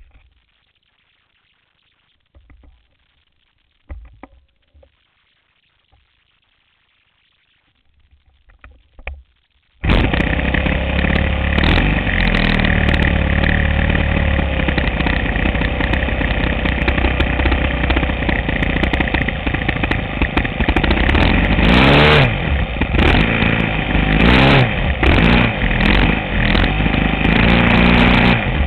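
A few faint handling knocks, then about ten seconds in the RC model airplane's engine starts abruptly and runs loudly right beside the landing-gear camera. Its pitch swings up and down a few times as it is throttled, and it runs steadily through the takeoff run on the grass near the end.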